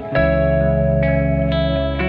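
Background music: held chords over a deep sustained bass, with new chords struck every half second or so.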